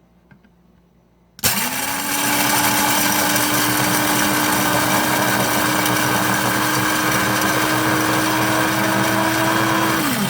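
KitchenAid blade coffee grinder (BCG111OB) grinding whole coffee beans: the motor starts about a second and a half in, quickly comes up to a steady whine over a loud rushing hiss of beans being chopped, then winds down near the end as the button is released.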